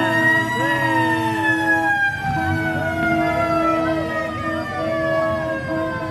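A siren winding down in one long wail that peaks just under a second in, then falls slowly and steadily in pitch. A steady lower tone and scattered voices run beneath it.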